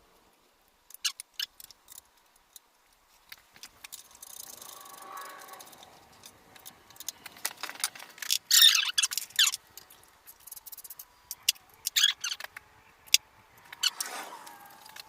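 Scattered clicks and clatter of hand tools and metal and plastic parts being handled while the handlebar bolts are undone, with one louder rattle lasting about a second, about eight and a half seconds in.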